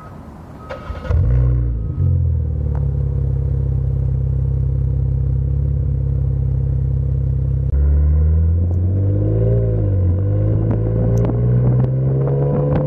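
Jeep Cherokee Trailhawk engine running through a Gibson aftermarket cat-back exhaust with Super Flow mufflers. It fires up about a second in and settles into a steady low idle. In the second half it gets louder, with revs rising and falling, then climbing slowly near the end.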